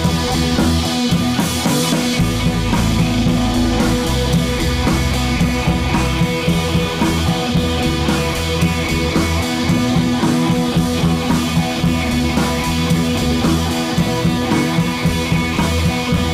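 Background music: a rock-style track with guitar and drums and a steady beat.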